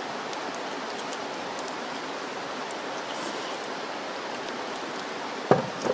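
Steady, even rushing hiss of outdoor background noise, with a short sharp knock near the end.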